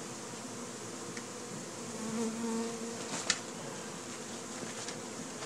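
Honey bees swarming around a hive box, a steady buzz of many bees in flight, with one bee's hum briefly louder near the middle and a sharp tick about three seconds in.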